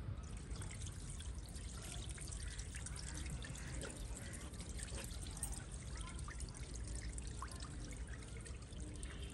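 Wash water being drained from a large metal pot of chopped carrots, pouring and trickling steadily onto a concrete floor, with a few faint knocks.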